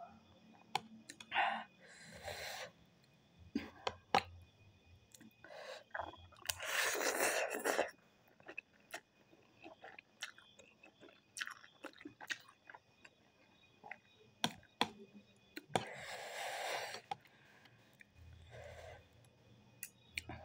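Close-up eating sounds: chewing ramen noodles and pork, with many small wet clicks. Two longer slurps, one about six seconds in and another about sixteen seconds in.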